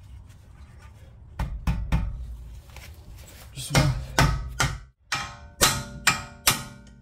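Metal-on-metal blows on a ball joint separator tool, struck to pop a control-arm ball joint loose: about ten sharp hits in three bursts, the last few ringing.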